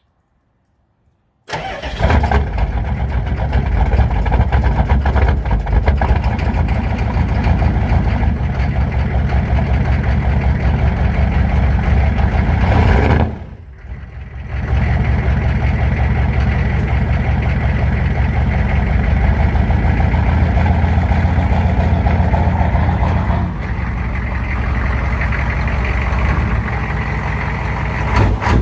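Pickup truck engine cold-starting after sitting unused for a couple of weeks. It catches about a second and a half in and then runs steadily at idle. The sound drops out briefly about 13 seconds in, and the engine runs a little quieter near the end.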